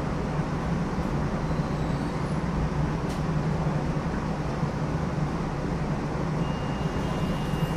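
New Orleans Canal Street streetcar running along its track: a steady low rumble and hum, with a thin high whine coming in near the end.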